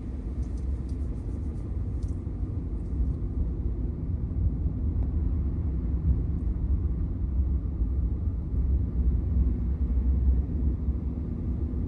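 Steady low rumble of a truck driving on a snow-covered road, heard from inside the cab: tyre and engine noise.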